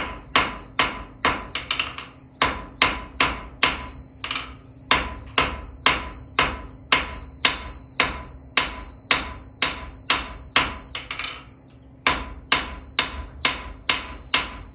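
Hand hammer striking hot steel on an anvil, drawing out the end of an iron bar to a point. The blows come in a steady rhythm of about three a second, with a high ring that carries on between them, and break off briefly twice.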